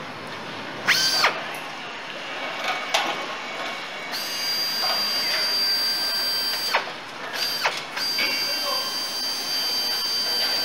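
Handheld power tool driving bolts into an engine on the assembly line: a high whine that spins up, runs and stops, several short bursts and two longer runs of a few seconds.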